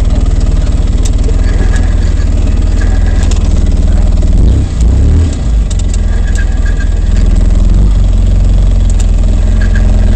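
Polaris RZR side-by-side's engine running steadily as it crawls over a rocky trail, heard from inside the open cab, with a few sharp clicks along the way.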